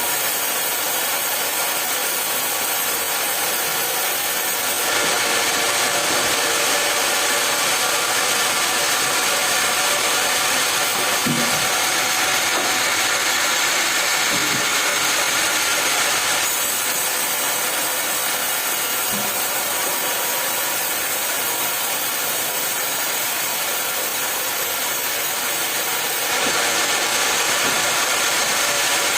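A sawmill saw cutting through a log: a steady, hissing sawing noise that turns abruptly louder or quieter a few times.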